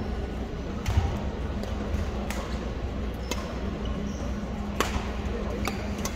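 A badminton rally: sharp racket-on-shuttlecock hits, about six, roughly a second apart, the loudest coming with a low thump about a second in. A steady low hum runs beneath.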